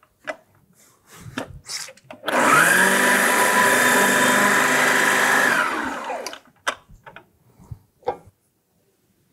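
Magimix Cook Expert food processor motor running steadily at speed for about four seconds while processing lemons, then winding down with a falling pitch. Plastic lid and handling clicks come before and after.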